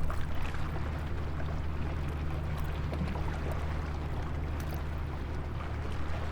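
Harbour ambience: a steady low drone under the wash of water, with scattered small clicks.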